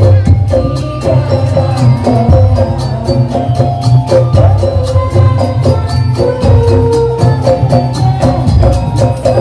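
Madurese daul percussion ensemble playing: deep drums beating steadily under fast, dense jingling cymbal strokes, with a melody line of held notes that step between pitches over the top.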